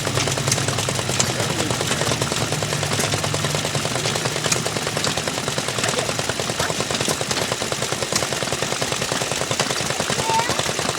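The small gasoline engine of a gas-powered washing machine running steadily, its exhaust a rapid, even string of pops. A low hum underneath fades out about four seconds in.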